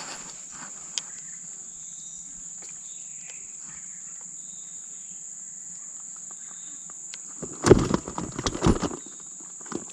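Insects droning steadily at a high pitch in tropical forest. About three-quarters of the way through, a short cluster of loud close rustling and knocks.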